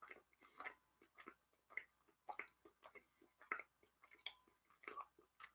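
A person chewing a mouthful of whiskey-infused cheese close to the microphone: faint, irregular wet mouth clicks, one or two a second.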